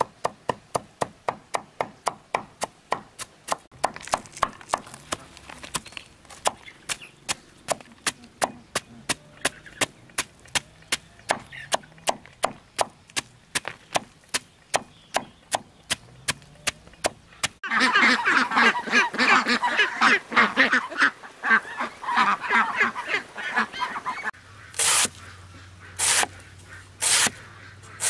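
A machete chops through a banana stem on the ground at a quick, even pace of about three strokes a second. About eighteen seconds in, a loud stretch of poultry honking takes over for several seconds. Near the end, slower, heavier machete strokes come about once a second, cutting rounds off the stem.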